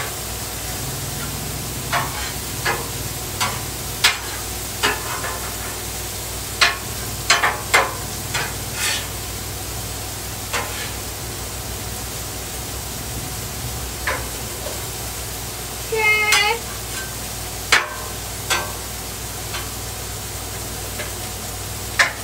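Beef patties and sliced onions sizzling steadily on a Blackstone flat-top griddle, with a metal spatula scraping and tapping the steel cooktop in sharp, irregular clicks.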